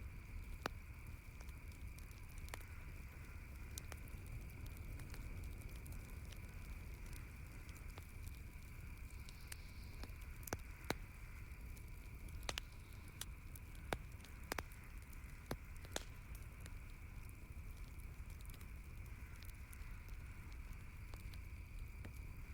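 Wood campfire crackling, with scattered sharp pops and snaps, several louder ones in the middle, over a steady background hiss.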